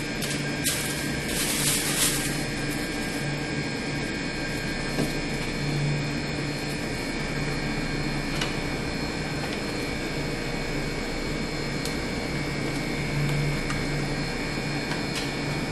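Plastic cake packaging being unwrapped and handled: a short crinkle of plastic wrapper about two seconds in, then a few light clicks of the clear plastic cake box, over a steady background hum.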